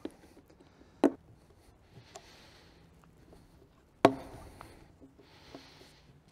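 Pliers working at the plastic lid of a pail: a few sharp plastic clicks and snaps, the loudest about four seconds in, with two short scratchy rasps of plastic in between.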